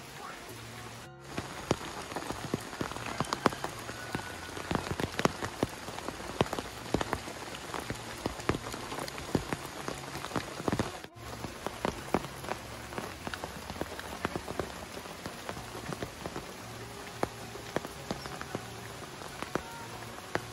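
Rain falling steadily: an even hiss of rain with many separate close drops tapping sharply through it.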